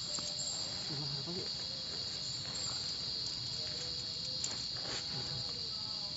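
Steady, high-pitched chorus of insects chirring in the forest, unbroken throughout.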